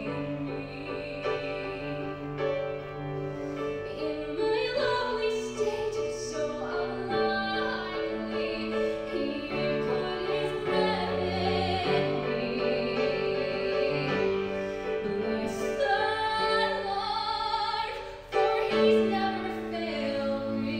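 A woman singing a slow song with vibrato, accompanied by piano and cello; the music dips briefly near the end, then the next phrase comes in louder.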